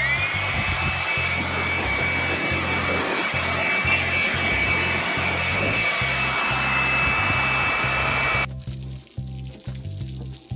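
Electric handheld leaf blower starting up, its whine rising quickly and then holding steady with a rush of air, before stopping suddenly about eight and a half seconds in.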